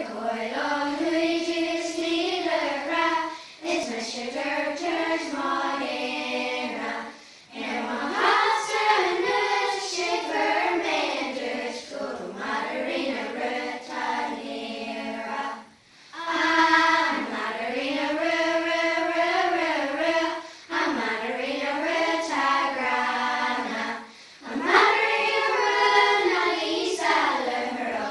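A group of primary-school children singing together as a choir, in phrases of a few seconds with short breaks for breath between them.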